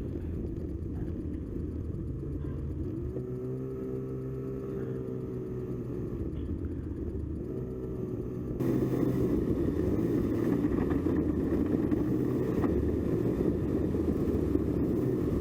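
Snowmobile engine running under way, its pitch rising and falling with the throttle. About two-thirds of the way through, the sound suddenly gets louder and hissier.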